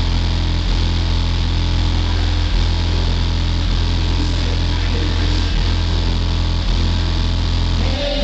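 Incriminator Audio subwoofer system in a sound-pressure competition truck playing a loud, steady deep bass drone during a timed dB Drag run scored at about 158 dB. The drone dips briefly every second or two and cuts off near the end as the run clock reaches zero.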